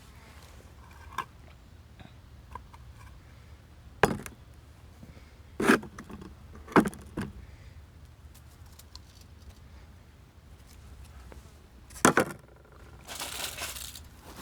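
A handful of sharp knocks and clinks of objects being handled, spaced a second or more apart, then a short rustling scrape near the end.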